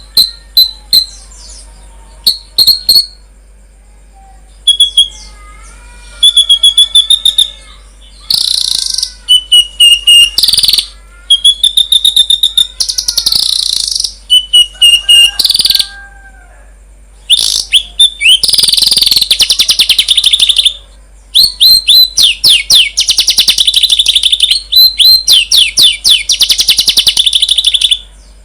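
Songbird song: loud phrases of rapid, high chirps and trills broken by short pauses, with a few lower whistled glides between them.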